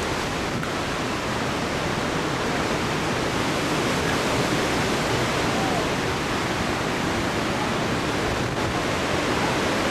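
Strong wind in a hurricane's wake thrashing trees: a steady rushing noise with no let-up.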